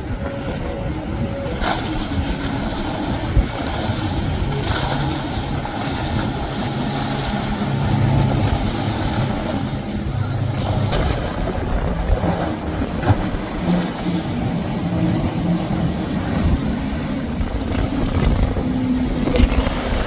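Outboard-powered motorboats running at speed through rough water, engines droning under the rush and splash of the hulls and spray, with the engine pitch shifting as the boats pass.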